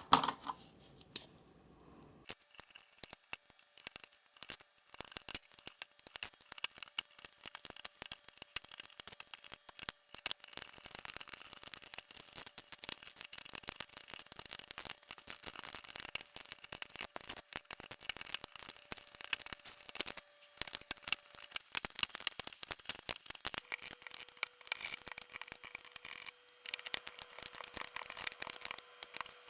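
Packaging being handled during an unboxing: a dense, continuous crackle of small rubs and clicks, like plastic wrap and bags crinkling. A sharp knock at the very start is the loudest sound.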